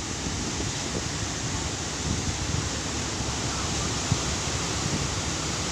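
Rough sea surf rushing steadily in strong wind, with wind buffeting the microphone.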